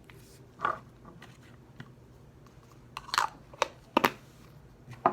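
Handling noise from a toy kit and its packaging being opened: a handful of short crackles and clicks, with a small cluster about three seconds in and a sharp click about a second later.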